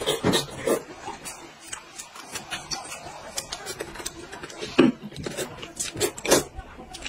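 Close-up slurping and chewing of hot-and-sour sweet-potato starch noodles in soup: a run of short slurps and mouth smacks, loudest a little before and a little after the 5-second mark.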